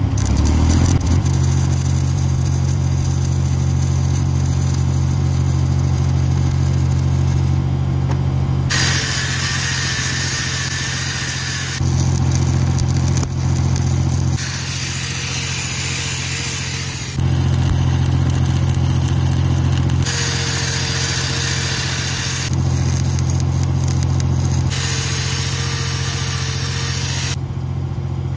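Engine-driven welding machine running steadily, with the crackling hiss of a stick-welding arc on an excavator H-link coming in several stretches of a few seconds each that start and stop abruptly.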